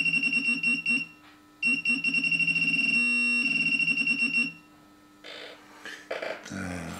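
Minelab Pro-Find 35 pinpointer sounding its detection alert, a steady high beep over a rapid low buzzing pulse, as a small coin comes within its range. The alert breaks off about a second in, sounds again for about three seconds, then stops, leaving a few soft handling sounds.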